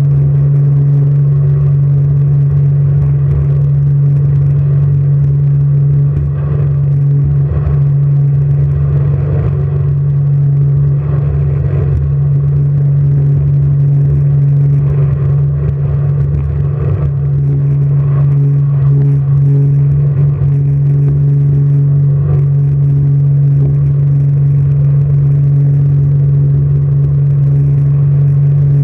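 Jet boat engine running steadily, a constant low drone with fainter overtones above it and rough noise underneath, with no big changes in speed.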